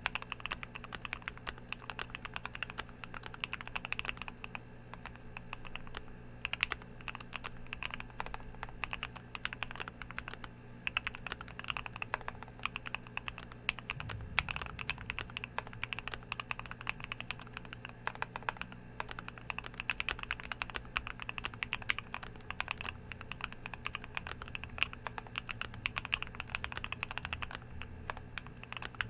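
Fast, continuous typing on a Keychron Q1 mechanical keyboard with C3 Tangerine linear switches: a dense, uneven stream of keystroke clacks.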